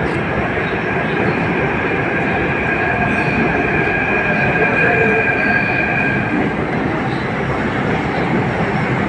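Jaipur Metro train pulling into an underground station: a steady rumble with a high, even squeal over it that stops about six and a half seconds in.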